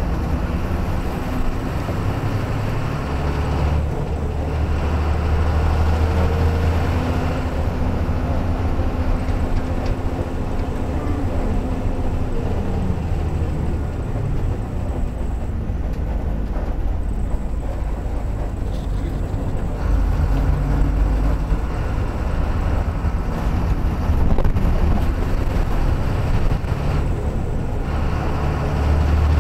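Engine and road noise of a moving bus heard from inside the cabin: a steady low drone with rumbling tyres, the engine note shifting a little as it changes speed.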